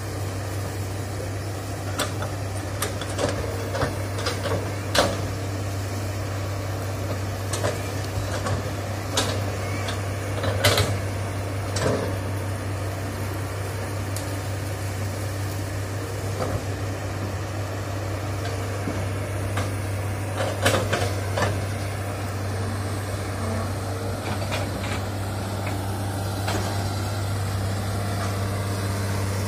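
Hitachi hydraulic excavator's diesel engine running with a steady low drone, with scattered sharp knocks and cracks as it works through the scrub, loudest about ten seconds in and again around twenty-one seconds.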